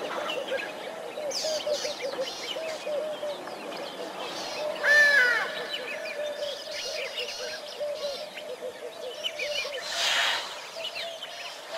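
Wild birds calling at a waterhole: a short low note repeated about three times a second throughout, with scattered higher chirps and one louder call about five seconds in.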